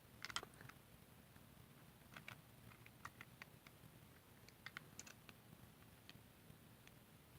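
Faint scattered clicks and ticks of hands working at the ties that hold a toy engine in its packaging, against near silence.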